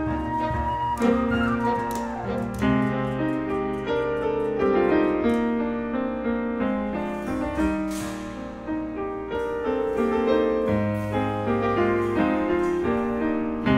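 Grand piano played live with a chamber ensemble of strings, clarinet and percussion, in a flowing passage of held and struck notes.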